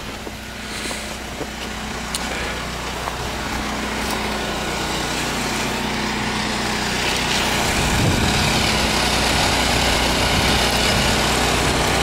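Small snowblower engine running steadily while the machine clears deep snow, with a hiss of thrown snow that builds in the second half.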